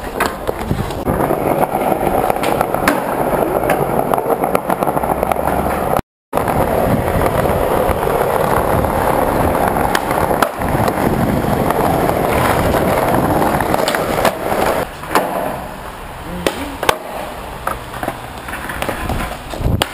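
Skateboard wheels rolling over a paved floor with a steady rumble, broken by sharp clacks of boards popping and landing. The sound cuts out completely for a moment about six seconds in.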